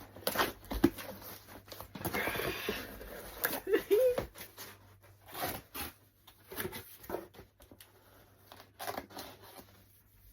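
A parcel being opened by hand: packaging paper or plastic tearing for about a second, with rustling, crinkles and small knocks around it.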